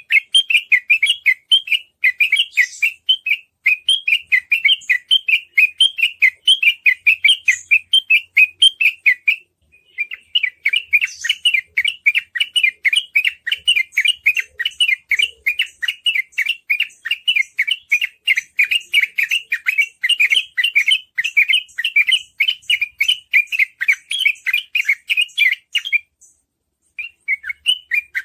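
Sooty-headed bulbul (trucukan) singing a fast, unbroken run of short warbled notes, the 'ropel' style of song, with a short pause about a third of the way in and another near the end.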